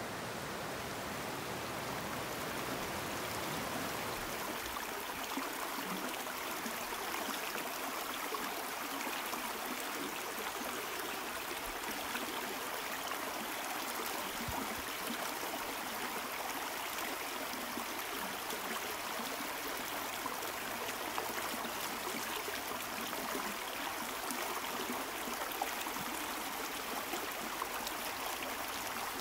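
The South Fork Skokomish River flowing: a steady rush of moving water.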